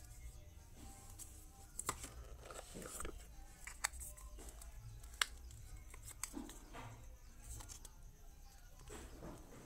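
Handling noise from a plastic Xiaomi 67W phone charger and a coiled USB cable being turned over in the hands, with a few sharp clicks and some rustling of packaging.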